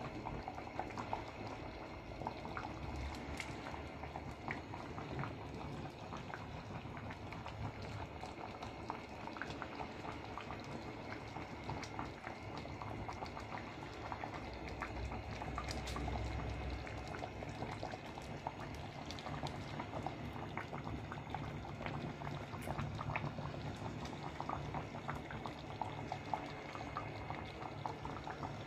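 Creamy chicken sauce boiling in a shallow frying pan: a steady bubbling fizz with many small pops throughout.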